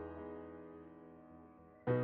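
Background music: slow piano chords, each ringing out and fading, with a new chord struck near the end.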